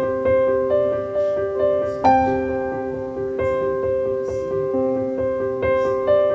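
Background music: a gentle tune on a keyboard instrument, piano-like notes struck about every half second and left to ring, with a fuller chord about two seconds in.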